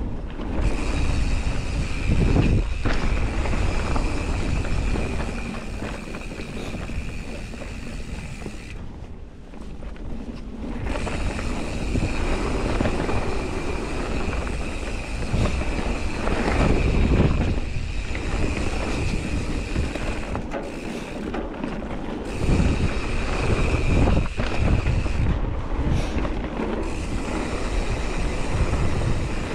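Mountain bike rolling fast down a dirt singletrack: tyre rumble and wind buffeting on the camera microphone, with a steady high buzz from the rear hub freewheeling while coasting that drops out a few times.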